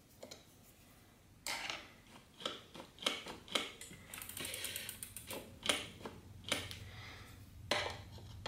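Irregular clicks and taps of hand work on a mountain bike's rear V-brake and its cable, with an Allen key at the cable anchor bolt. About four seconds in, the rear wheel is spun and the hub's freewheel ticks quickly for a second or so.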